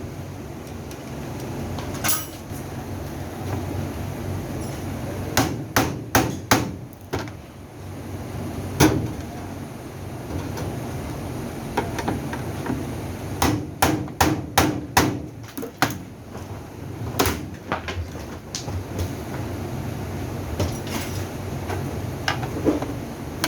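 Hammer blows and knocks on the parts of a top-load washing machine being taken apart: sharp strikes in irregular clusters, a quick run of them about five seconds in and another just past halfway, with single knocks between.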